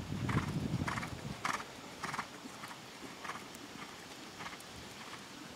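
A horse's hoofbeats on arena sand in a steady rhythm, a little under two a second, louder in the first half and fading as the horse moves away.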